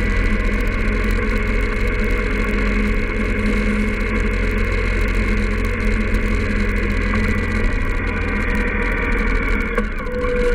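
Indian Scout motorcycle's V-twin engine running at a steady pace on the road, with wind noise over the microphone. The level dips briefly near the end.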